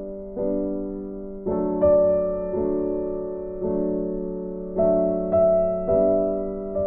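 Background music: soft electric piano playing slow sustained chords, a new chord struck about every second and left to fade.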